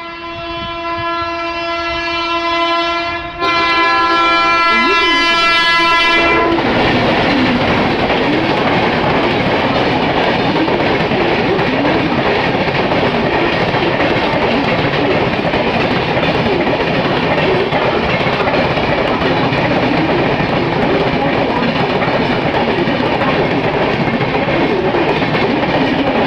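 Train horn sounding one long, steady blast that grows louder about three and a half seconds in, as a through train runs into the station without stopping. After about six seconds the horn stops, and the loud rumble and clickety-clack of the passing coaches carry on without a break.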